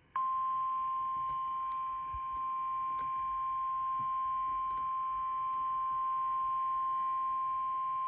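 NOAA Weather Radio 1050 Hz warning alarm tone: one steady, unbroken beep held at a single pitch. It is the signal that an emergency message, here a severe thunderstorm warning, is about to be broadcast.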